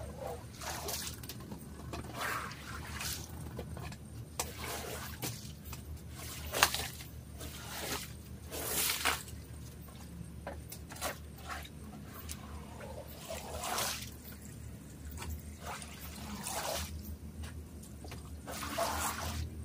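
Water being worked through a wet, soaked area rug during washing: irregular swishes and trickles of water, with a sharp knock about six and a half seconds in.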